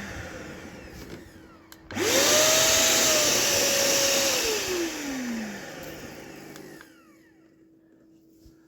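VEVOR wet/dry shop vacuum's motor switched on about two seconds in, spinning up quickly to a steady whine, then switched off after a couple of seconds and spinning down with a falling whine until it fades out. At the very start, the tail of an earlier run is still winding down.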